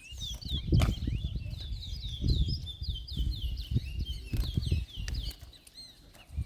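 Caged towa-towa seed finch singing in a bird-singing race: a long, fast string of short slurred whistled notes, each sliding downward, with low rustling and fluttering thumps underneath.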